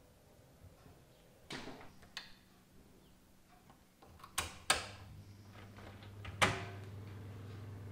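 A few soft handling noises, then an electric oven being switched on: two sharp clicks from its controls, after which the oven's fan starts a steady low hum. A louder click comes about a second and a half later while the hum runs on.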